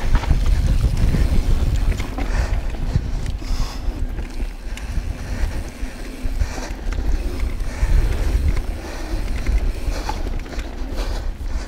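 Wind buffeting the action camera's microphone as a Yeti SB6c mountain bike rolls over a rocky dirt trail, with tyre noise and scattered short rattles and knocks from the bike.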